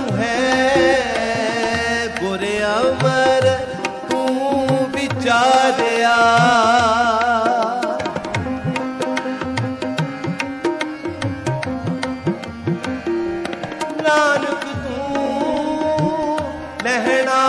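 Shabad kirtan music without words: tabla keeping the rhythm under a wavering melody line that carries the tune between sung verses. The melody fills the first half, thins out in the middle while the tabla continues, and returns near the end.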